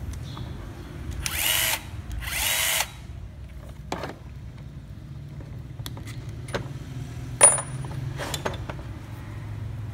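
Bosch GDR 120-LI cordless impact driver's motor spinning briefly without load, twice, each burst about half a second with a rising whine. A few sharp metallic clicks follow as bits and the holder are handled, over a steady low hum.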